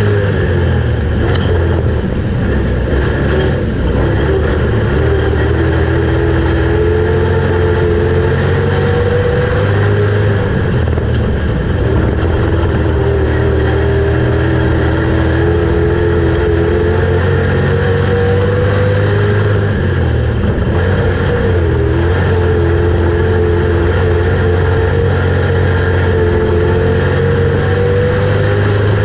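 A street stock race car's engine running at racing speed on a dirt track, heard loud from inside the cockpit. Its pitch climbs steadily for several seconds and then drops back, about three times, over a constant low drone.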